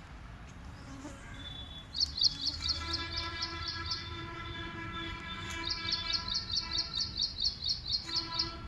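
A small bird calling in quick runs of high, evenly repeated chirps, about five a second, starting about two seconds in and again from the middle to the end. Under the chirps a steady droning tone with several overtones holds for several seconds.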